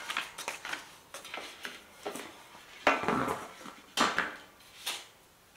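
Painted steel panels of a flat-packed IKEA TESAMMANS trolley clinking and knocking against each other as packing paper and cardboard sheets are lifted off them, with paper rustling between the knocks. The sharpest knocks come about three and four seconds in.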